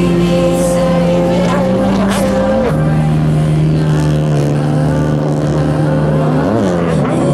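Racing jet ski engines running hard at high revs: a steady pitched drone that drops a step in pitch a little under three seconds in and briefly dips and recovers about six and a half seconds in, with a hiss of spray over it.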